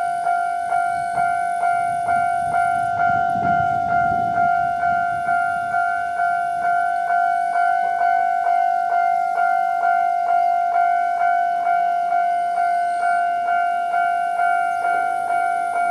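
Japanese railway level-crossing alarm ringing steadily at its normal volume, a quickly decaying electronic bell tone struck about two and a half times a second. A brief low rumble passes under it about four seconds in.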